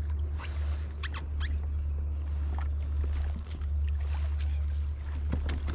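Movement and handling noises in a fishing kayak: scattered light clicks and short squeaks over a steady low rumble, with a sharper knock near the end.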